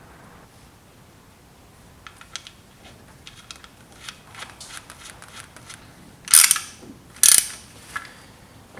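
Hand ratchet wrench clicking in quick runs, followed by two louder short noises and a last click.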